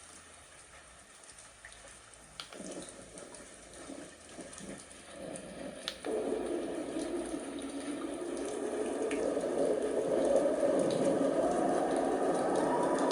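A portable white noise machine playing a recorded running-water sound. It starts faint, jumps louder about six seconds in, then keeps growing louder.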